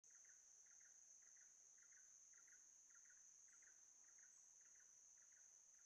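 Faint insect sounds: a steady high-pitched buzz with a short double chirp repeating nearly twice a second.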